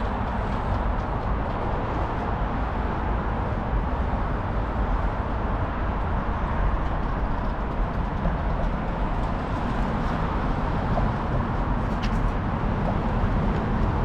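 Steady city street noise, mostly passing road traffic, with a brief high squeak about twelve seconds in.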